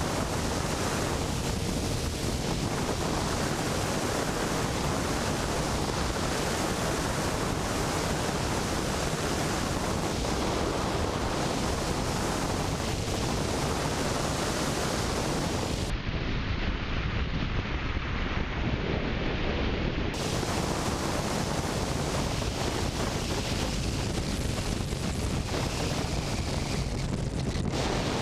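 Steady wind rush buffeting a helmet-mounted action camera's microphone while riding a motorcycle at road speed, with the Suzuki GSX-R600's engine faint beneath it.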